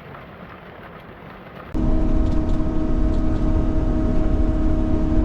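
A quiet, even rumble, then about two seconds in, an abrupt switch to the loud, steady running of an excavator's diesel engine and hydraulics, with a steady hum.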